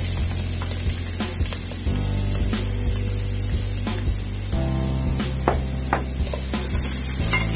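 Minced onion and garlic sizzling in hot oil in a pot, with the spoon clicking and scraping against the pot as it is stirred.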